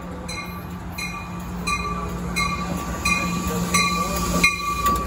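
Amtrak Pacific Surfliner passenger train pulling slowly into a station, running with a steady low rumble and hum that grows louder as the cab car draws alongside. A bell rings over it in an even rhythm, about three strikes every two seconds.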